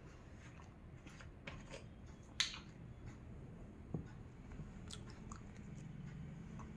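Plastic cap of a portable mini juicer bottle being twisted open and taken off, with faint scattered clicks and scrapes; the sharpest click comes about two and a half seconds in, and another near four seconds.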